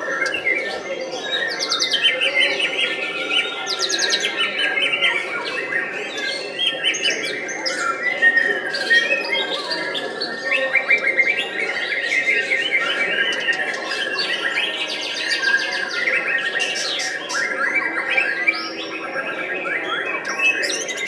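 White-rumped shama (murai batu) singing: a continuous, varied stream of whistles, rapid trills and chattering notes.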